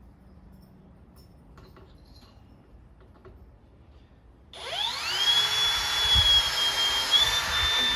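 Cordless drill starting about halfway through and driving a wood screw into hard wood: its motor whine rises as it spins up, then holds nearly steady, dipping slightly under load. Before that there are only faint handling clicks.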